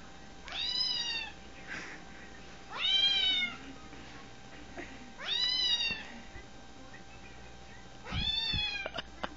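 Recorded cat meows played through a smartphone speaker: four near-identical meows a couple of seconds apart, with a few light taps near the end.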